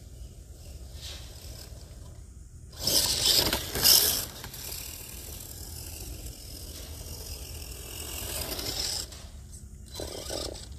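Gen7 Pro electric RC truck, modded as a mud truck, driving through grass: a geared drivetrain whirring with tyres scraping through the grass. It is loudest in a burst about three seconds in and again near the end, as it comes close.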